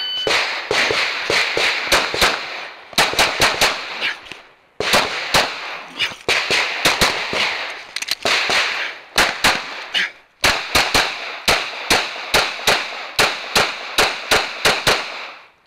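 Glock 19 9mm pistol firing a long run of fast shots, mostly in quick pairs and short strings, with brief pauses between groups. A short electronic beep, the shot timer's start signal, sounds at the very start.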